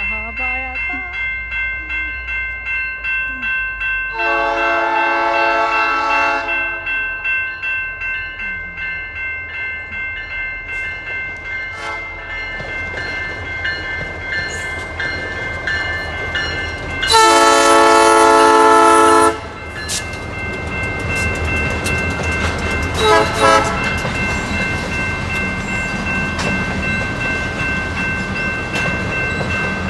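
Railway crossing bells ringing in rapid, even strokes while a Canadian Pacific diesel freight train sounds its air horn: a long blast about four seconds in, a second, louder one about seventeen seconds in, and a short toot a few seconds later. From about twelve seconds on, the locomotives and loaded tank cars rumble past with wheels clacking over the rails.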